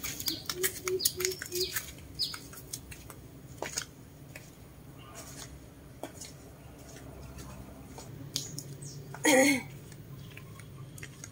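Birds chirping in short, quick, falling chirps, thickest in the first two seconds, with four short low notes about a second in. A single loud call of under half a second, rising in pitch, comes at about nine seconds.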